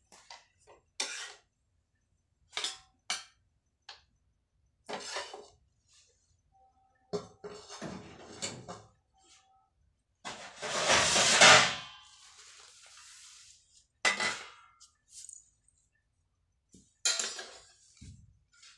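Scattered clinks and knocks of metal pots, a tawa and a plate being handled on a gas stove, with one loud clattering rattle a little past the middle.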